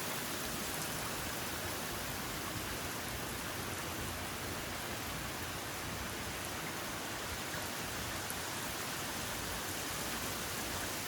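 Steady rain falling hard, an even hiss with no breaks.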